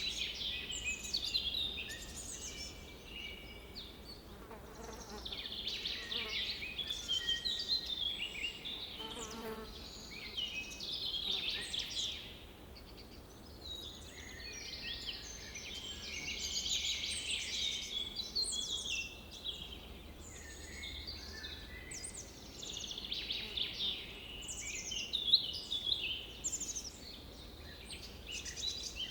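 Several wild birds singing in an overlapping chorus of short chirps and trills that swell and fade in phrases. A lower insect buzz passes close twice, around five and nine seconds in.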